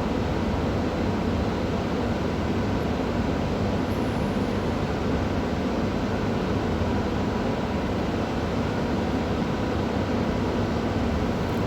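Steady background noise with a faint hum and no separate knocks or clicks.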